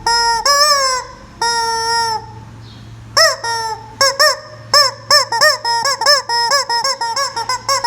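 A noise-making chicken giving loud honking squawks: a few long held calls in the first two seconds, a short pause, then from about three seconds in a rapid string of short squawks that rise and fall in pitch.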